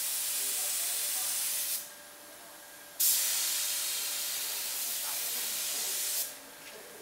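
Compressed-air paint spray gun hissing as it sprays 2K paint. The trigger is released about two seconds in, pulled again a second later, and released again near the end.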